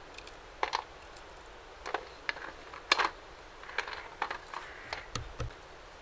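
Irregular light clicks and taps of walnut kernels and a small knife handled over an aluminium tray, as walnut halves are strung onto thread for köme. The sharpest tap comes about three seconds in.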